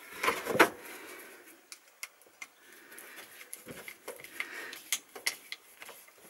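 Handling clicks of a screwdriver turning the screw of a metal hose clamp on a plastic water-filter housing: two louder knocks in the first second, then a scatter of small irregular clicks and ticks.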